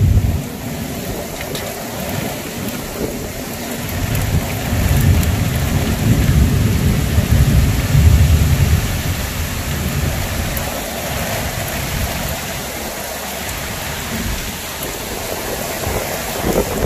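Heavy monsoon rain pouring steadily. Low rumbles of distant thunder swell up from about four to nine seconds in.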